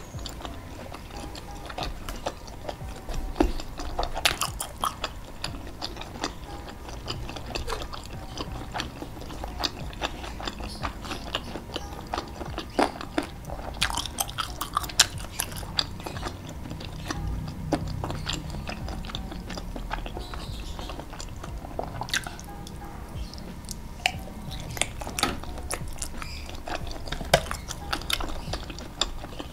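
Close-up chewing and biting of skewered meatballs in thick chili sauce: wet mouth sounds with many irregular short clicks.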